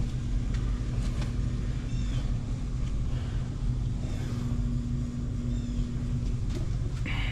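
A steady low mechanical hum with a faint steady tone in it that stops about six seconds in, and a few faint high chirps now and then.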